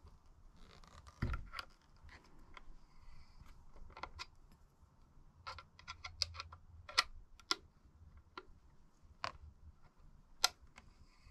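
Irregular light clicks, taps and clinks of tools and small bike parts being handled during pivot-bearing work, with a sharper knock about a second in and single louder clicks around seven and ten seconds in.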